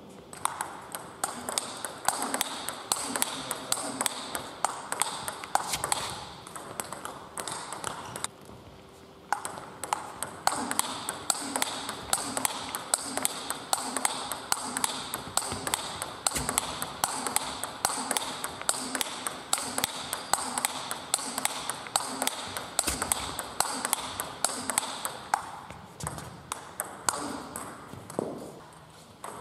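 Table tennis balls struck by paddles and bouncing on the tables in fast practice rallies: a quick run of sharp clicks, several a second, with overlapping rallies from more than one table. There is a short lull about eight seconds in.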